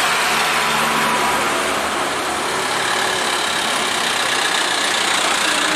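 Diesel trucks passing close on a road: engine running and tyre noise, the low engine hum fading after about two seconds.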